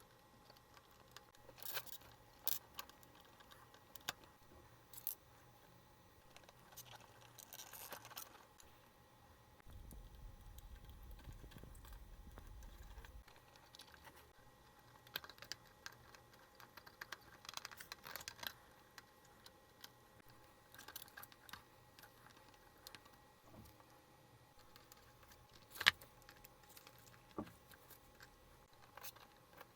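Small metal parts and tools handled on a workbench: scattered light clicks and clinks, one sharper click near the end, and a faint low hum for a few seconds about a third of the way in.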